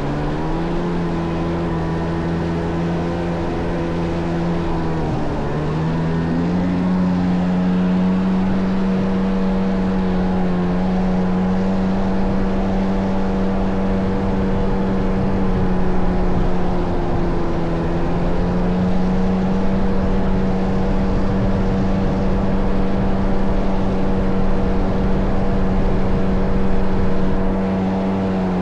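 Kawasaki JS550 stand-up jet ski with a swapped-in 650 two-stroke twin engine running at a steady cruising speed. Its pitch rises about six seconds in, eases off briefly around eighteen seconds, and starts to fall near the end.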